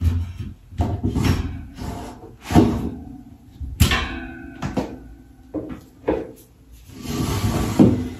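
Metal-framed shoe rack being shifted and set into place: irregular knocks and scrapes, with a sharp clank about four seconds in and a longer scraping sound near the end.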